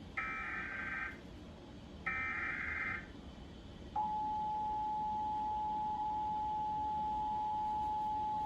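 Emergency Alert System Required Monthly Test tones. Two screechy bursts of digital SAME header data, each about a second long, are followed about four seconds in by the steady EAS attention-signal tone, which starts suddenly and holds.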